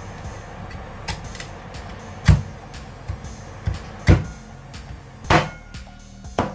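Meat cleaver chopping through a whole steamed chicken onto a cutting board: four heavy chops about a second apart, with a few lighter knocks between.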